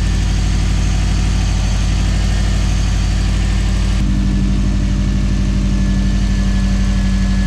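Turbocharged Subaru flat-four engine idling steadily, with even firing pulses, while its ignition timing is checked with a timing light. The tone of the idle shifts slightly about four seconds in.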